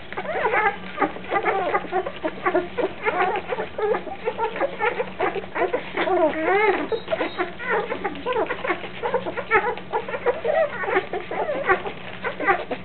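A litter of 9-day-old Labrador retriever puppies squeaking and whimpering while nursing, many short overlapping high squeaks with one longer wavering whine about six seconds in.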